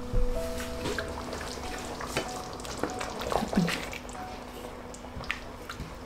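A wooden spoon stirring thick, simmering curry gravy with paneer cubes in a stainless steel pan, giving wet stirring and scraping with several light knocks of the spoon against the pan.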